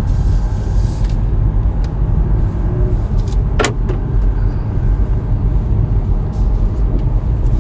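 Steady low rumble of road and tyre noise inside the cabin of a BMW 320d (G20) driving along a rough road, with one sharp knock about three and a half seconds in. The car is being driven to judge ride harshness after a suspension upgrade.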